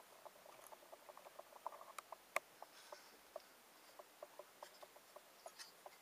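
Faint handling noise from fingers turning and gripping an aluminium computer heatsink with a fan attached: many small scattered clicks and taps, with one sharper click about two and a half seconds in.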